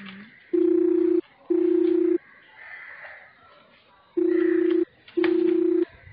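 Telephone ringing in the old double-ring pattern: two rings of a steady low tone, a short gap between them, then a pause of about two seconds and two more rings.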